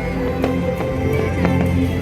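Music with long held low notes plays loudly, with a few faint firework bangs underneath.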